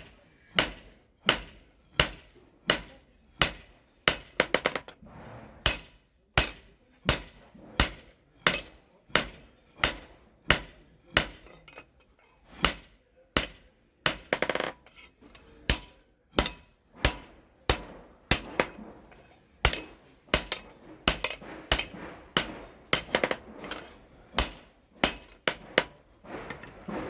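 Blacksmith's hammer striking a machete blade on the anvil while forging, in a steady rhythm of about one and a half blows a second, some landing as quick double taps, each with a short metallic ring.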